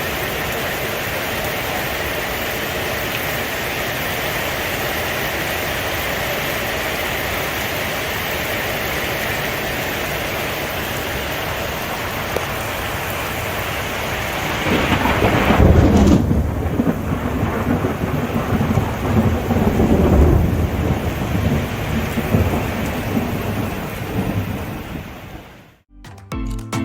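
Steady heavy rain, then a long low roll of thunder from about fifteen seconds in that lasts some ten seconds while the rain's hiss fades.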